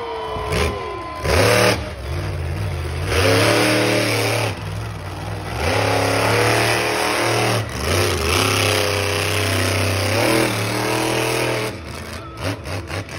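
Monster truck engine revving hard in several long surges, its pitch climbing and falling as the truck jumps and drives across the dirt arena.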